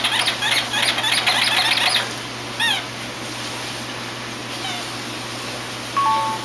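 Rubber squeaky toy squeaked rapidly over and over for about two seconds, then a single falling squeak and a few more scattered short squeaks.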